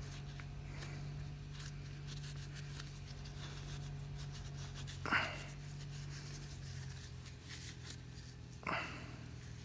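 A rag rubbing over the aluminium housing of a power steering pump in gloved hands, faint rustling over a low steady hum, with two short sharp sounds, about five seconds in and near the end.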